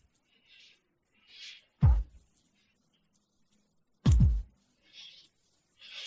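Isolated rock drum track in a sparse passage: two heavy, low drum hits, about two seconds in and about four seconds in, with faint short hissy cymbal-like wisps between them.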